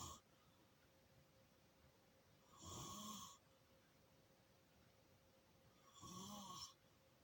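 Faint snoring: two snores about three and a half seconds apart, each lasting under a second, with the end of an earlier snore at the very start.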